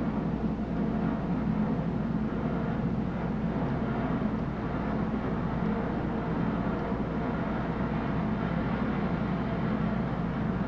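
Vehicle running steadily, heard from inside the cab: an even low rumble with no breaks or changes.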